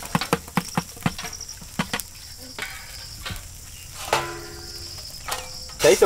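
Dosa batter being stirred by hand in a large aluminium pot, a quick run of wet strokes, then a quieter stretch with a faint hiss from the hot iron griddle as batter is poured onto it.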